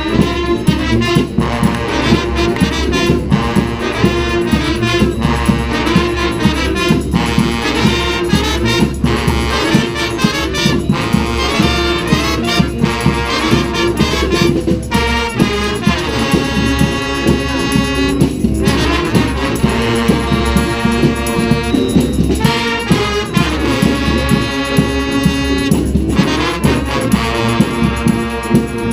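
Brass band playing: a group of horns in loud riffs and held chords over drums, with a steady beat.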